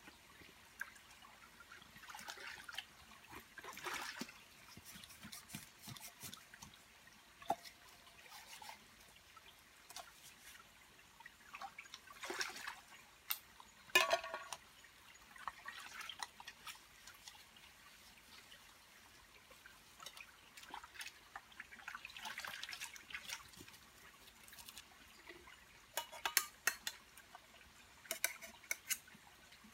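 Water splashing and dripping as small metal camping pots are rinsed and scrubbed by hand in a shallow stream, with the soft trickle of the stream behind. A pot clanks once with a short metallic ring about halfway through, and light knocks of metal cookware come near the end.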